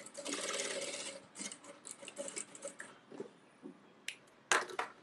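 Industrial sewing machine stitching a seam in a run of about a second, then a few short starts amid fabric rustling. Sharp clicks near the end, the loudest about four and a half seconds in.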